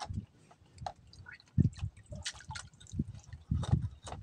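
Hands splashing and sloshing in a basin of water while gutting and washing rabbitfish, with irregular drips and small splashes and a few heavier splashes about one and a half seconds in and again near the end.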